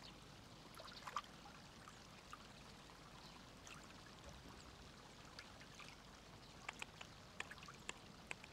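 Near silence: a faint trickle of pond water with a few soft ticks.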